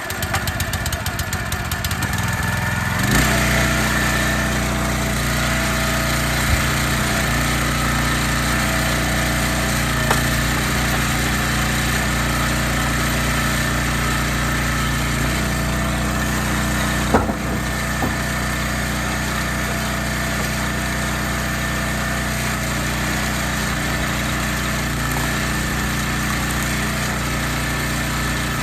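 Small gas engine of a log splitter starting up, then settling about three seconds in to a steady, faster run. A few sharp knocks stand out over it.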